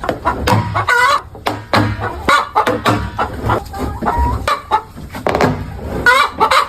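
A flock of chickens clucking and squawking, with many short calls overlapping one after another.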